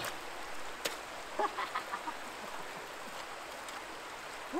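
Steady rush of water spilling over a canal lock's overflow weir. A sharp click comes about a second in, then a few short, faint pitched calls.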